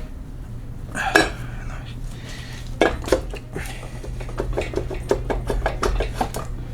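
Metal engine parts and tools clinking and tapping against each other while a rotary engine is being taken apart. A quick run of small clicks comes in the second half, over a steady low hum.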